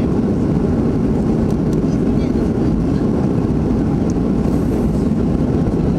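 Steady, deep cabin noise of a Boeing 737-500 climbing after takeoff: its CFM56 jet engines and the airflow over the fuselage, heard from inside the passenger cabin.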